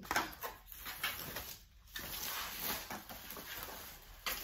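Rustling of wallpaper sheets laid over the floor, with light knocks and scrapes as a stretched canvas is lifted and shifted on them.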